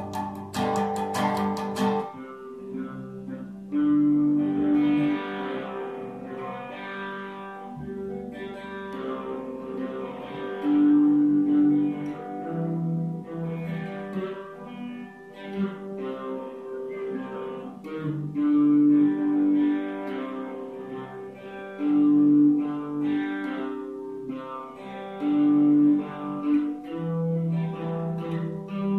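Guitar music played live, plucked and strummed, with long held notes ringing out every few seconds. The first two seconds are a brighter, fuller strummed passage, then the playing goes softer.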